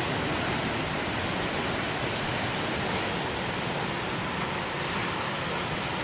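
Big waves breaking on a beach: a steady, unbroken rush of surf.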